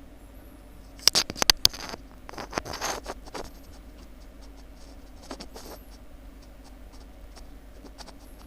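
Small metal tools, tweezers and soldering tip, scraping and clicking against a phone battery's protection board. There is a sharp cluster of clicks about a second in and a rougher scraping run around three seconds, then only scattered faint ticks over a faint steady hum.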